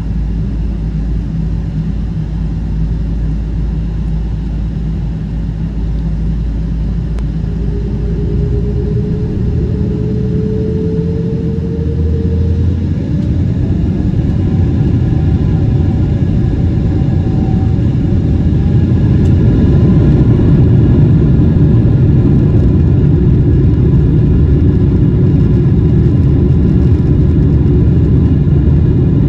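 Boeing 777-200's jet engines spooling up to takeoff thrust, heard from inside the cabin: a deep rumble with a whine that rises in pitch from about eight seconds in, growing louder as the takeoff roll builds.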